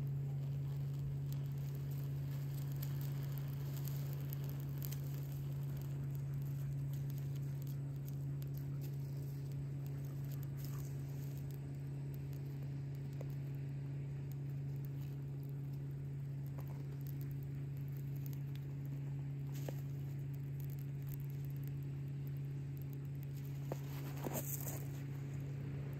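A freshly match-lit tinder bundle of dry grass and leaves smouldering, with faint scattered crackles and ticks, over a steady low hum. A short louder burst comes near the end.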